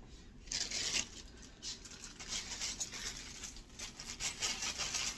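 Clear plastic bag crinkling and rustling in irregular bursts as a weightlifting belt is pulled out of it, starting about half a second in.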